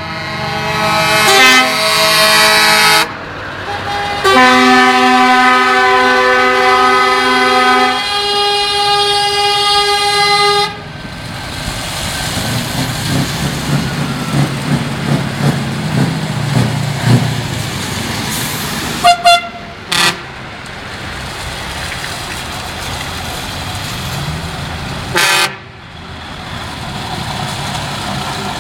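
Truck air horns blowing long chords of several notes through the first ten seconds, as a convoy of heavy trucks drives past. Then the diesel engines of the passing trucks and the hiss of tyres on the wet road, broken by short horn blasts twice around two-thirds of the way through and once more later.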